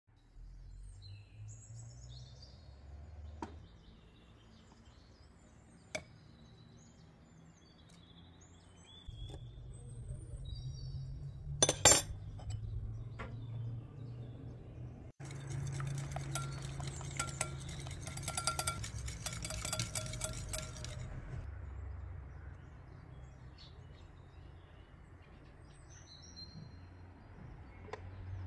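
Wire whisk beating in a glass mixing bowl: a fast, dense run of clinks lasting about five seconds in the middle. It follows a single sharp clink against the glass a few seconds earlier, the loudest sound. Birds chirp faintly now and then.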